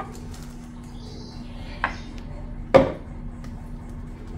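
Wooden cutting board, just used to press masa dough flat between plastic sheets, set down with a sharp knock about three seconds in. Before it come a lighter click and a faint rustle of plastic, over a steady low hum.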